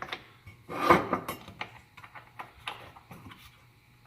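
Metal and plastic parts of a Delta Cruzer sliding compound miter saw being handled and moved, with scattered clicks and knocks and one louder clunk about a second in.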